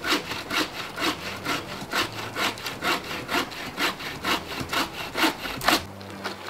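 Hand saw cutting through a dry, dead branch in quick, even rasping strokes, several a second, which stop near the end.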